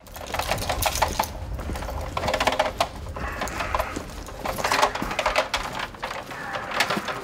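Bicycle wheeled along by hand, its rear hub clicking rapidly, with footsteps on brick paving.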